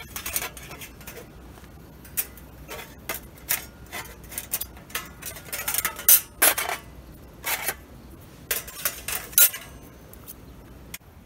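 Stainless steel panels of a folding wood stove clinking and clattering as they are slotted together by hand: an irregular run of sharp metal clicks that stops near the end.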